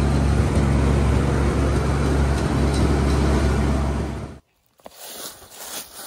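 Wood chipper's Ford gasoline engine idling steadily while it warms up from cold, its exhaust not yet repaired. The engine sound cuts off suddenly about four seconds in, leaving a few faint knocks.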